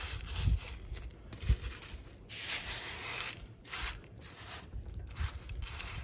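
Hands pushing and raking loose gravel across a glass birdbath bowl, the pebbles scraping and grinding against each other and the glass in several uneven spells, as the gravel is pushed up toward the rim. A couple of soft low thuds in the first two seconds.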